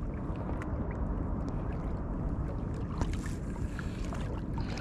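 Steady wind buffeting the microphone outdoors by the water, with a few faint ticks.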